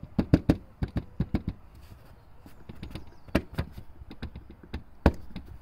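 Quick irregular series of sharp clacks and knocks from loose parts on a Tesla Model S, the rattle the owner is hunting for. The clacks come in clusters near the start, about halfway through and near the end.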